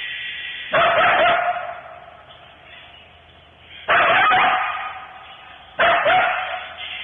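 Coyotes barking: three loud, harsh barks a few seconds apart, with fainter drawn-out howling between them.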